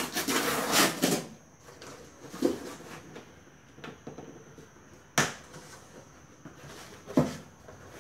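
Packing tape on a cardboard box being cut and torn open: a loud ripping noise for about the first second, then quieter scraping of tape and cardboard, with two sharp knocks about five and seven seconds in as the box is handled and its flaps are pulled open.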